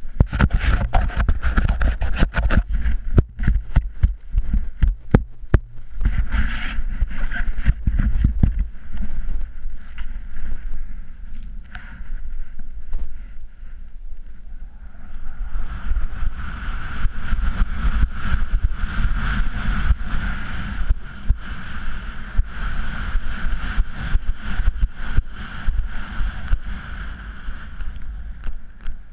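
Wind buffeting an action-camera microphone together with the rush and crunch of a rider carving down through powder snow. It is loud and rumbling with sharp crackles for the first several seconds, eases a little partway through, then settles into a steadier hiss.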